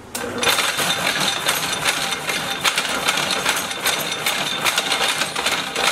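Keller power hacksaw switched on and sawing through 1-inch-thick 1018 mild steel bar with a 6 TPI Starrett Redstripe blade: a loud, rhythmic metal-on-metal rasp as the blade strokes back and forth in the cut.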